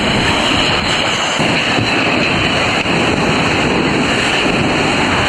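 Water rushing down a water coaster slide: a steady, loud wash of noise.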